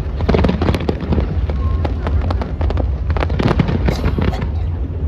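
Fireworks going off in quick succession: many sharp bangs and crackles over a steady low rumble.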